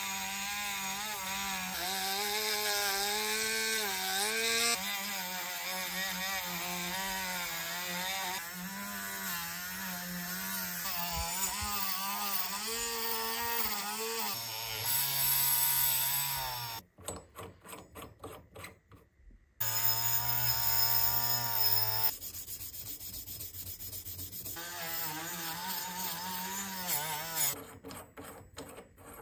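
Cordless rotary tool spinning a brass wire wheel against brass blowtorch parts: a steady motor whine with a rasp of bristles on metal. About halfway through the pitch drops lower and louder; the tool stops for a couple of seconds, then runs again and fades near the end.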